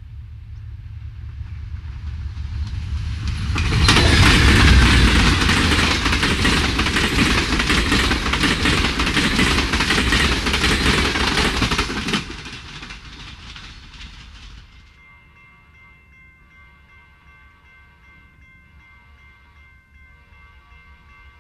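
Amtrak Southwest Chief passenger train passing at speed close by: the rumble of its two GE P42DC diesel locomotives builds and peaks about four seconds in, then the stainless-steel bilevel cars rush past with rapid wheel clatter on the rails for about eight seconds. The sound drops sharply about twelve seconds in and fades away.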